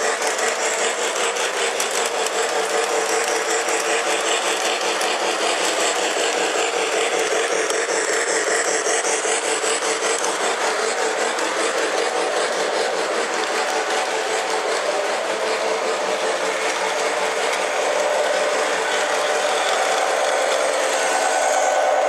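Model train locomotive running on the layout's track: a steady electric-motor whir with a fine, fast rattle of wheels on rails, a little louder near the end.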